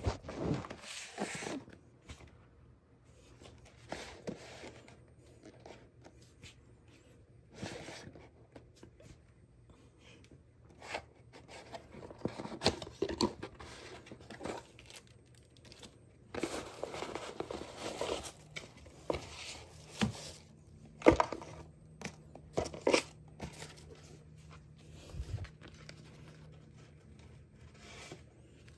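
Unboxing: cardboard box flaps opening and a plastic bag and paper leaflet rustling and crinkling as the lamp is unpacked. Stop-start rustling and scraping with a few sharp knocks, the loudest a little past the middle.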